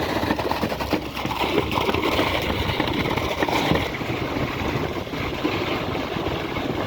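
Concrete pump and site machinery running steadily during a slab pour: a dense, continuous noise with scattered small knocks.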